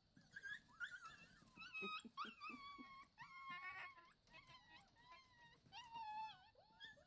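A litter of seven-week-old Brittany puppies whining and yipping: many short, high-pitched cries that rise and fall and overlap one another.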